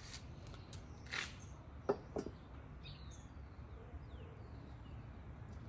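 Outdoor garden ambience: a steady low rumble with faint chirps from small birds. A brief hiss about a second in and two sharp clicks about two seconds in, the first of them the loudest sound.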